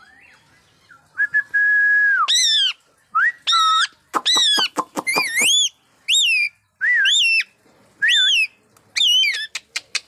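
Rose-ringed parakeet whistling and calling: a held whistle about a second in, then a string of loud calls roughly one a second, each bending up and down in pitch, with sharp clicks among them.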